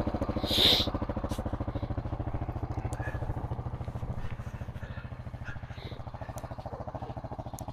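ATV engine idling with a steady, rapid pulse, growing a little fainter in the second half. A brief high hiss comes about half a second in.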